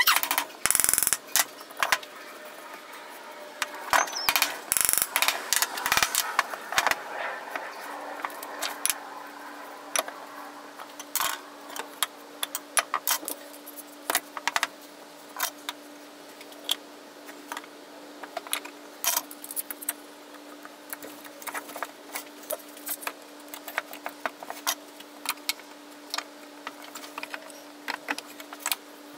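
Hardwood workpieces knocking and clattering on a tiled bench as the parts of a small box are fitted together, with louder knocks in the first few seconds. A run of lighter sharp clicks follows as the parts are handled and clamped. A faint steady hum starts about eight seconds in.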